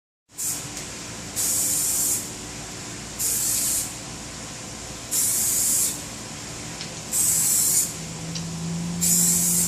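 Spray applicator hissing in six short bursts, each a little under a second and about two seconds apart, as a coating is sprayed onto a restored headlight lens in passes.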